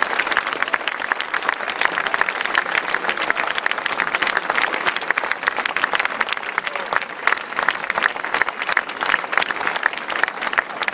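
Crowd applauding: a dense, steady patter of many hands clapping at once.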